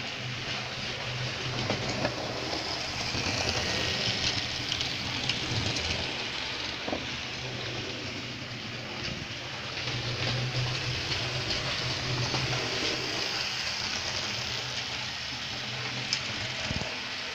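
Model electric train running on sectional track: a low motor hum with the wheels rattling over rail joints and points, swelling louder twice.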